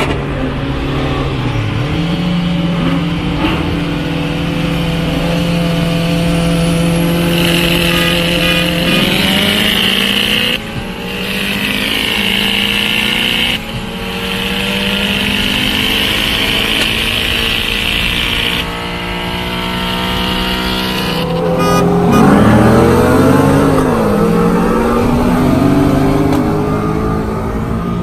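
Modified performance cars' engines at full throttle in a roll race, heard from inside one of the racing cars. Engine pitch climbs and falls back at gear changes, over a strong high hiss of wind and road.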